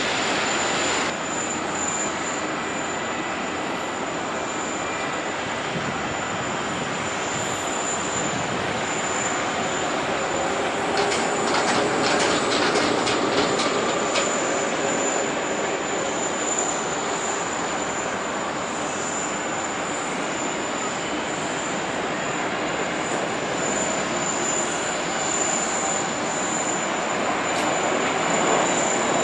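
Jet engines of an Air China Boeing 777-300ER on final approach to landing: a steady roar with a thin, high whine over it, growing a little louder about halfway through as the plane comes closer.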